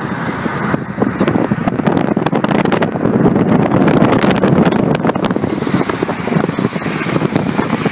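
Steady rushing wind buffeting the microphone at a moving car's window, with the car's road noise, crackling throughout, while an SNCF TER regional electric train passes close alongside on the adjacent track.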